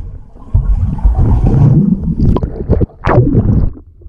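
Muffled underwater bubbling and churning water in a swimming pool, picked up by a waterproof camera held under the surface, with a couple of sharper bursts in the second half.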